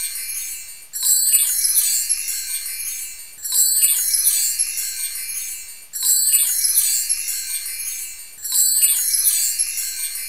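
High, tinkling chimes in a repeating loop: a shimmering swell starts about every two and a half seconds and fades before the next one begins.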